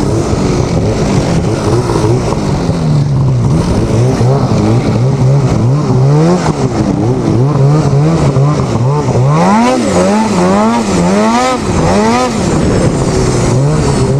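Snowmobile engine running while the sled is ridden through snow, its revs rising and falling. In the second half the pitch swings up and down quickly several times as the throttle is worked.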